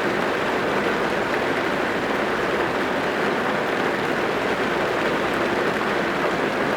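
Steady rain drumming on a car's roof and windows, heard from inside the car: a dense, even patter with no pauses.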